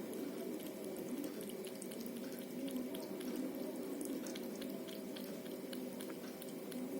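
A cat lapping virgin coconut oil from a spoon: a quick run of small wet licking clicks over a steady background hum.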